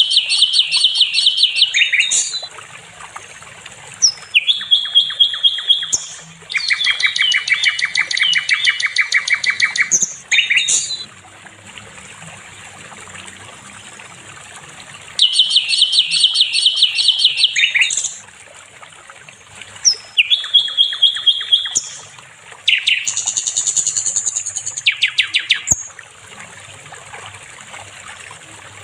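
Songbird song given as sikatan londo: loud, rapid trills of fast repeated high notes, delivered in phrases of a few seconds with short gaps, and a longer pause about halfway through.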